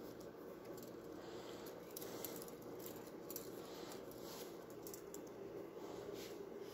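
Faint crinkling and scattered small clicks of thin dyed cedar strips being threaded and pulled tight by hand, over a steady low hum.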